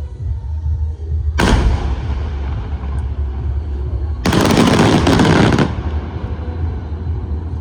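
Fireworks going off: a sudden loud report about a second and a half in that trails away, then a rapid roll of crackling bangs lasting just over a second, over a steady low rumble.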